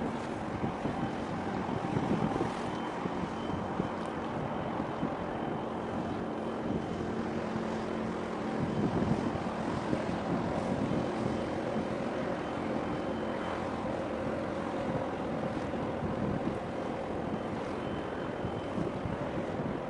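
Wind buffeting the microphone over choppy sea and waves, with the steady hum of a motorboat's engine underneath.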